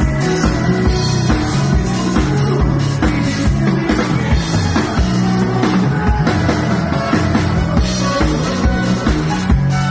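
Live dance band playing amplified music: electric guitar and bass over a steady drum beat, with two trumpets playing near the end.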